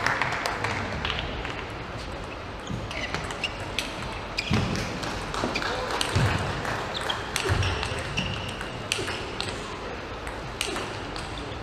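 A table tennis rally: the ball clicks off the rackets and the table in quick succession, with a few low thuds and short squeaks from the players' footwork.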